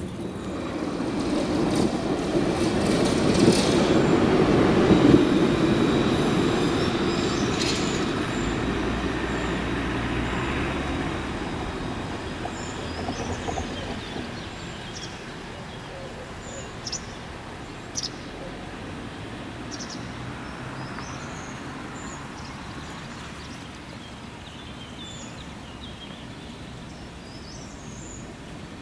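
A passing vehicle swells to its loudest about five seconds in and fades away over the next several seconds, leaving a quieter steady rumble. Short high bird chirps are scattered through the second half.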